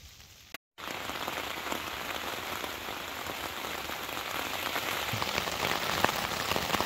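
Steady rain falling, with single louder drops striking close by more often toward the end. Under a second in, the sound cuts out completely for a moment before the rain comes in louder.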